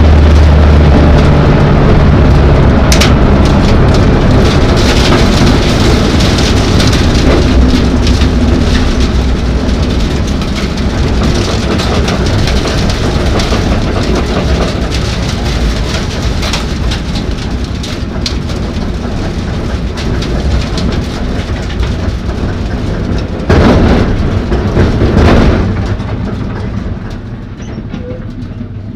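ARCA stock car's V8 engine heard from inside the cockpit, with a lot of rattling from the car. It is loud at first and gets gradually quieter as the car slows off the track, surges louder for a couple of seconds near the end, then drops lower as the car comes to a stop.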